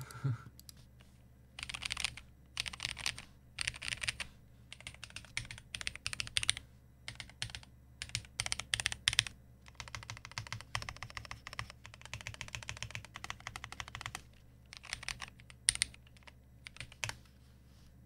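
Typing on a Kyria58 split mechanical keyboard with lubed Drop Holy Panda tactile switches and DSA doubleshot keycaps. The keystrokes come in bursts lasting from about half a second to several seconds, with short pauses between them, and stop shortly before the end.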